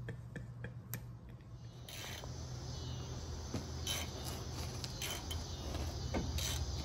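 Faint steady insect chirping, with a few short clicks now and then.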